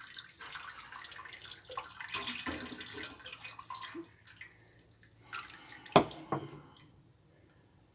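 Liquid splashing, trickling and dripping in a kitchen, with small clinks, as brewing liquid is poured over and drained through the grain. A single sharp knock about six seconds in, after which the trickle dies away.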